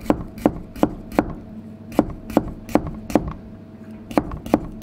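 Japanese kitchen knife slicing a yellow bell pepper into thin strips on a cutting board: a series of sharp taps as the blade meets the board, about two to three a second, with two short pauses.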